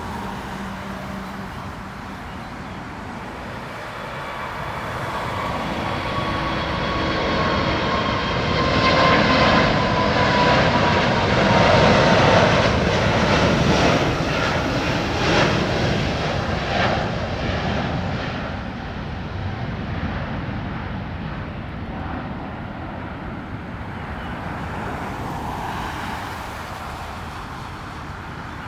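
Jet airliner taking off, its engines swelling to a peak about ten to fourteen seconds in and then fading as it climbs away, with a high whine that falls slowly in pitch as it passes.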